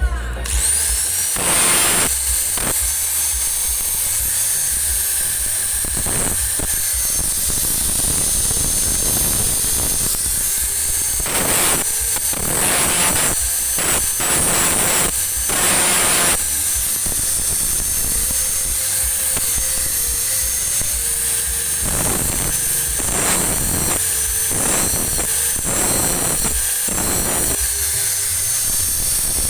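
Electric grinder spinning up to a high steady whine, then grinding metal in repeated surges.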